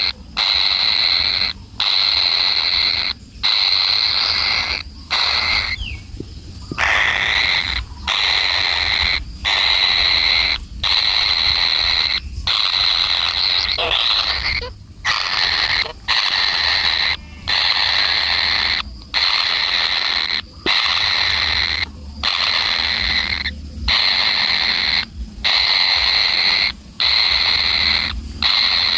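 A shrill animal call repeated over and over, each call about a second long with a short break before the next.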